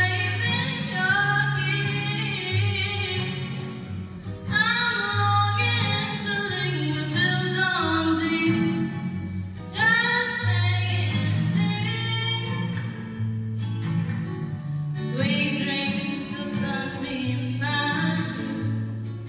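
A woman singing a slow song into a microphone, accompanied by guitar, her voice coming in phrases with short breaths between them.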